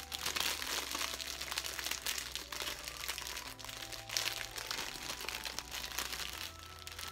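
Clear plastic bag crinkling and crackling as it is pulled open and handled by hand.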